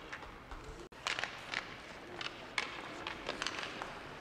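Youth ice hockey play: skate blades scraping the ice and sticks knocking the puck, a run of sharp, irregular scrapes and clacks. There is a brief dropout about a second in.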